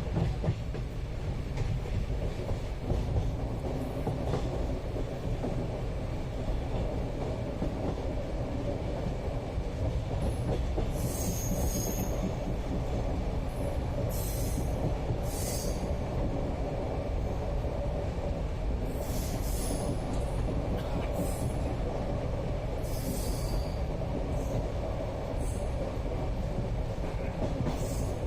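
Indian passenger train running along the rails, heard from inside the coach: a steady low rumble of wheels and carriage. From about ten seconds in, short high-pitched hissing noises come and go several times.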